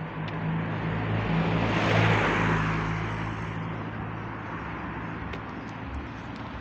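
A car passes close by on the street, its engine and tyre noise rising to a peak about two seconds in and then fading away.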